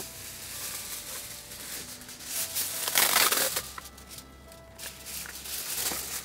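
Aluminium foil crinkling and rustling as a sheet is pulled off and handled, loudest about three seconds in.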